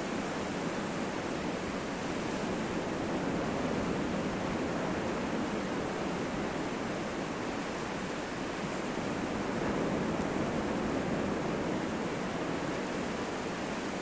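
Sea surf breaking and washing onto a sandy beach: a steady rushing noise that swells a little about ten seconds in.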